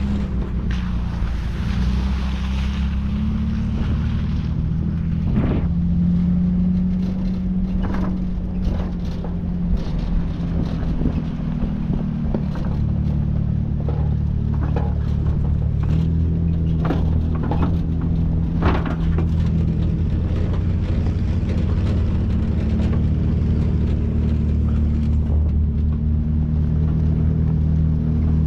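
Truck engine running at low, fairly steady revs while driving a rough dirt trail, heard from inside the cab, with scattered knocks and rattles as the truck goes over bumps.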